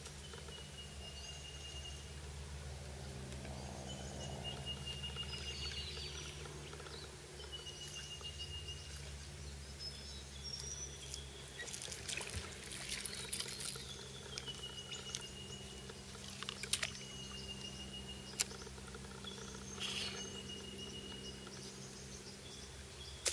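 Birds calling: a run of thin whistled notes, each held about a second, at a few different pitches. A few soft splashes and clicks come in about halfway through.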